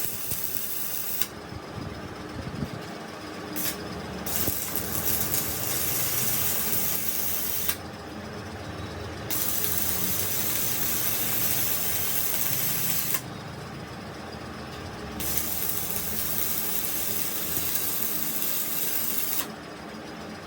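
Loud hiss, switched on and off in stretches of a few seconds with short breaks between them, over a steady low hum.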